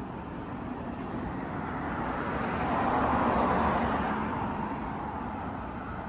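A car driving past on the street, its road noise rising to a peak about halfway through and then fading away.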